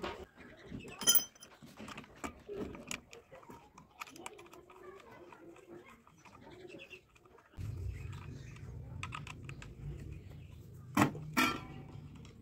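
Small metallic clicks, clinks and knocks from the metal parts and hex key of a chainsaw attachment being fitted onto an angle grinder, with a sharp metallic tink about a second in and two louder knocks near the end. A low steady hum comes in abruptly past halfway.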